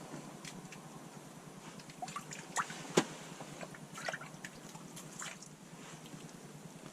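Small drips and splashes of water in an ice-fishing hole as a bluegill is brought up on the line, with a few sharp clicks, the loudest about three seconds in.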